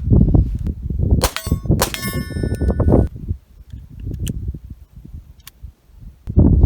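Gunshot from a Glock 19 9mm pistol and, under a second later, the hit on a 3/8-inch AR500 steel target plate, which rings for about a second.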